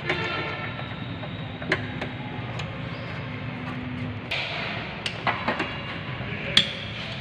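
Scattered sharp metallic clicks and taps of a spanner working loose the 10 mm bolts on a clutch cable bracket, several bunched in the second half, over a steady low background hum.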